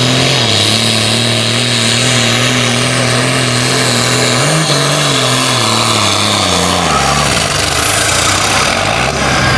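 John Deere 4455 pulling tractor's diesel engine running hard under load, briefly rising in pitch about four and a half seconds in, then revving down over the next couple of seconds as the pull ends and settling to a lower steady speed. A faint high whistle falls in pitch near the end.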